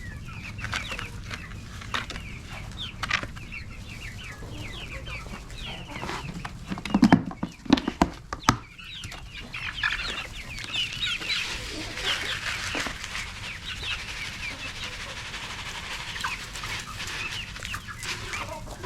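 A flock of chickens clucking, with many short high-pitched calls throughout. A burst of loud knocks and clatters comes about seven to eight seconds in.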